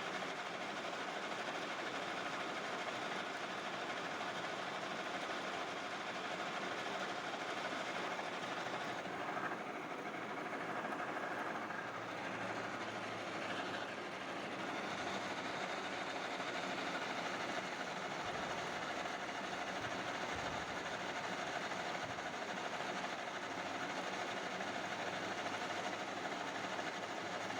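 Metal-turning lathe running steadily with a constant hum and a hiss, turning a steel pulley blank; the hiss thins for a few seconds in the middle.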